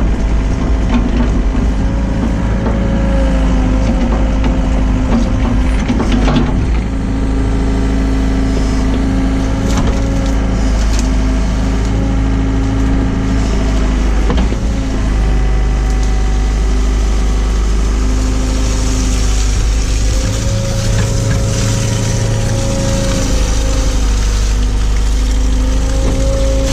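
Hyundai excavator's diesel engine running steadily under hydraulic load, its pitch shifting slightly as the machine works. Scattered knocks and cracks break in over the engine noise.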